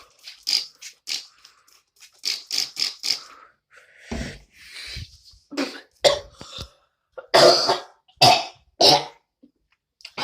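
A person coughing repeatedly, in several short fits of sudden coughs.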